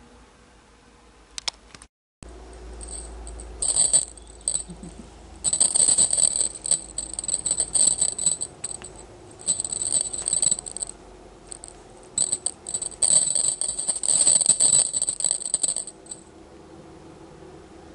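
A small rattle toy jingling and rattling in repeated bursts as a kitten bats it about on a wooden floor. The bursts start about three and a half seconds in and stop about sixteen seconds in.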